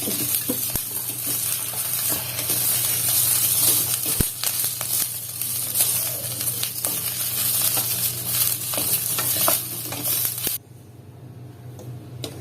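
Red chillies frying in hot oil: a steady sizzle with scattered small pops, a light crackling from rainy-season moisture in the chillies bursting in the oil. The sizzle cuts off suddenly near the end.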